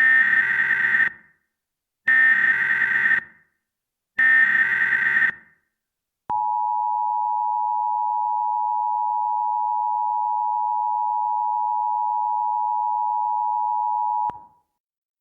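Emergency Alert System header: three one-second bursts of raspy digital SAME data tones, followed by a steady electronic attention tone held for about eight seconds that cuts off sharply near the end. It signals the start of a new emergency alert.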